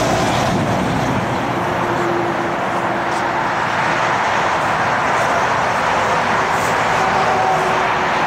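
Twin-engine widebody airliner's jet engines during its landing rollout, a steady loud noise with a faint hum in it.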